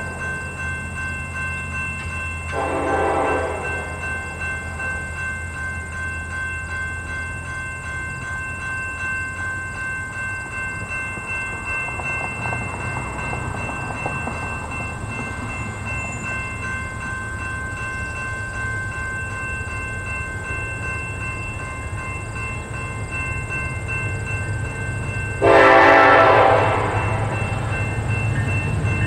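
Horn of an approaching CN diesel locomotive sounding twice, a short blast about three seconds in and a louder blast near the end, over the low rumble of the train, which grows louder toward the end.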